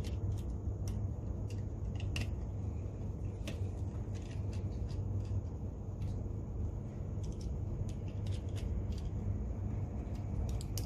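Small precision screwdriver working tiny screws out of a DJI Spark remote controller's plastic housing: faint irregular clicks and ticks of the driver and the plastic being handled, over a steady low rumble.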